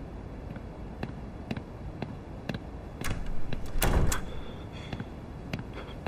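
A door opening about three seconds in, with a thud near four seconds, over faint ticks about twice a second.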